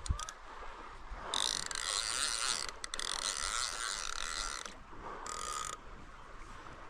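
Fishing reel's ratchet running in a long burst of about three seconds, then a short one of about half a second.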